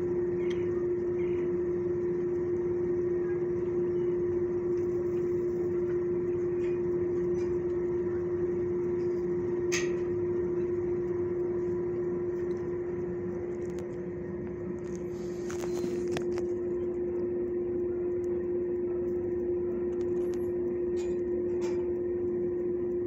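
A steady mechanical hum holding one constant tone, with a few faint ticks.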